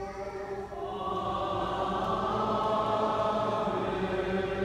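Byzantine liturgical chant sung unaccompanied by a group of voices, held notes that swell and grow fuller about a second in.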